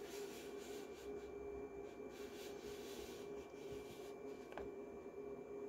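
Faint rustling of a paper picture book being handled and its pages shifted, over a steady faint hum, with a couple of soft ticks near the end.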